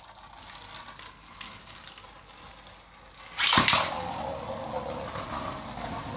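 A Beyblade Burst spinning top whirring faintly on the stadium floor. About three and a half seconds in, a second top is launched in with a sudden loud rasp, and the two then spin together with a louder steady whir.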